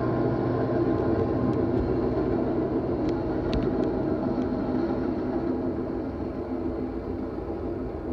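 Metra commuter train rolling past, a steady rumble of wheels on rails that slowly fades as the train moves away, with a few faint clicks about halfway through.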